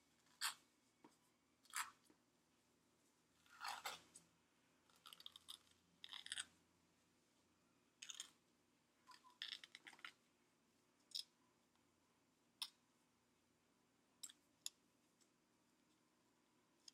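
Athletic tape being pulled off the roll, torn and pressed onto a pre-wrapped foot: a string of short ripping and crackling sounds, some single and some in quick runs, with quiet between.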